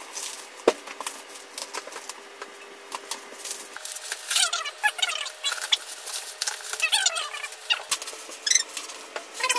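Parcel packaging being torn and unwrapped by hand: irregular crinkling and tearing with sharp clicks. From about four seconds in there are repeated short high cries that fall in pitch, from an animal in the room.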